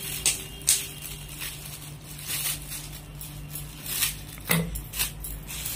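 Scissors snipping through metallic foil gift-wrap paper, with the foil crinkling as it is handled; a few sharp snips come at irregular intervals.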